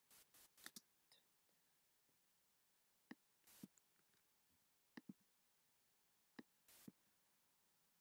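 Faint computer mouse clicks, about half a dozen spread out, with a few brief bursts of hiss: several in the first second and two more later on.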